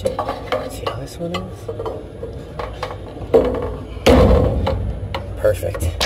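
Metal parts and tools being handled on the blower motor mount of a rooftop unit: scattered clinks, knocks and scraping, with a louder scuffing rush about four seconds in.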